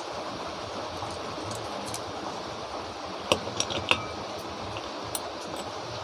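A few light metal clinks of small tools or fan parts being handled, bunched about three to four seconds in with one more near the end, over a steady background hiss.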